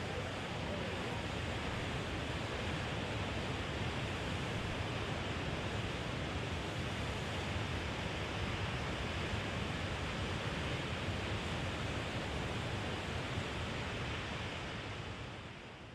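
Steady rushing roar of ocean surf, even and unbroken, fading out near the end.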